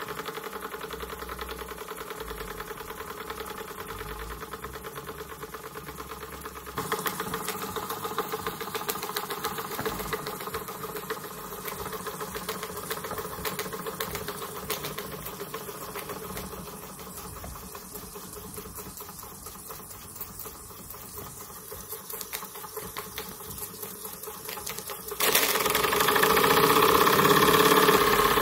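Retrol miniature steam engine running steadily, with a fast, even clatter from its piston, valve gear and flywheel. It gets louder near the end.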